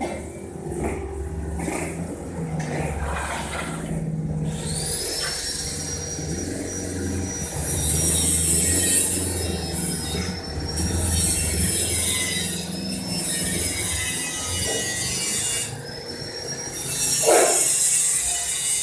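A power tool working metal: a high whine spins up about four seconds in and wavers with the load, with three bursts of hissing as it grinds or cuts, over a low rumble.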